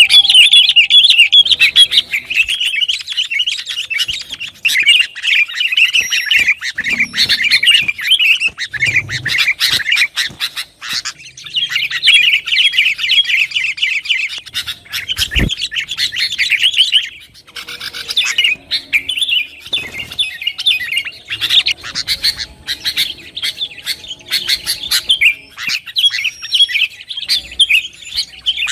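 Sooty-headed bulbuls (kutilang) calling in dense, rapid chatter with only short lulls. There is a brief low thump about halfway through.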